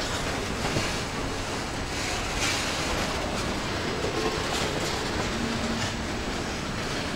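Union Pacific intermodal freight train's double-stack container well cars rolling past: a steady rumble of steel wheels on rail, with irregular clacks as the wheels cross rail joints.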